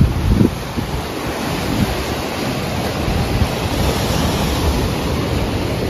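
Sea waves surging and breaking at the shore in a steady wash of surf, with wind rumbling on the microphone, heaviest in the first half second.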